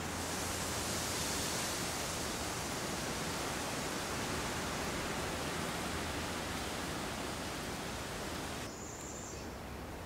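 Steady outdoor swamp-forest ambience: an even hiss, brightest in the high range. About nine seconds in it drops a little in level, and a brief thin high note sounds.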